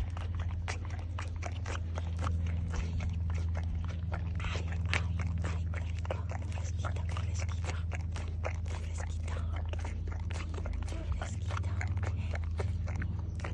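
Miniature pony eating frozen red-fruit ice cream right at the microphone: wet, irregular chewing, crunching and lip-smacking clicks, several a second, over a steady low hum.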